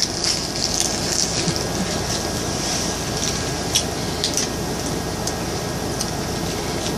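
Steady hiss of room or microphone noise, with a few soft clicks from people chewing chocolate truffles.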